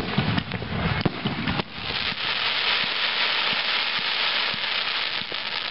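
Aerial fireworks: a shell bursts with a sharp bang at the start, followed by a second or so of low booms and pops. For most of the rest a dense, even crackling hiss comes from the falling shower of sparks.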